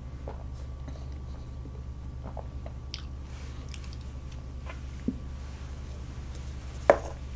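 Quiet sips and swallows from a paper cup: a few faint short mouth sounds scattered over a steady low hum, with one slightly louder one near the end.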